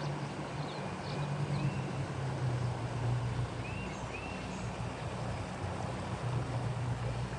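A small boat's motor running steadily with an even hum, over a wash of water and wind noise, with short high chirps now and then.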